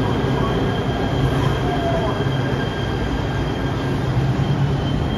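Los Angeles Metro A Line light rail train, Kinkisharyo P3010 cars, running past the platform with a steady high-pitched wheel squeal over a low hum. The squeal stops near the end.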